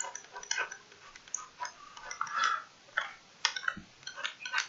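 Irregular light clicks and taps, several a second, some with a faint clinking ring.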